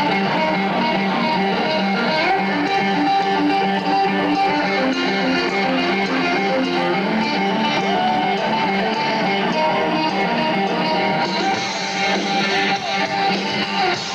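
Electric guitar playing rock riffs live, amplified through a concert sound system.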